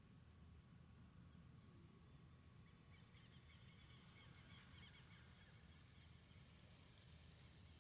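Near silence: faint outdoor ambience with a steady high-pitched insect drone and a low rumble, and a few faint chirps in the middle.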